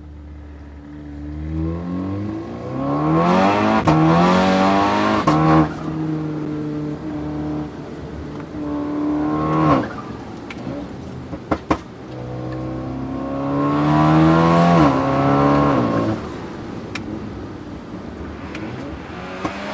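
Tuned Škoda Octavia vRS 245's turbocharged 2.0-litre four-cylinder accelerating hard in two pulls. Its note rises through the revs and drops sharply at each quick upshift of the DSG gearbox, with a short sharp crack at some of the shifts.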